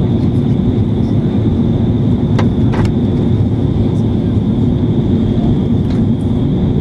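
Steady cabin noise of a jet airliner on its approach: the engines and airflow make a loud, even rumble with a thin steady high whine over it. Two faint clicks a little over two seconds in.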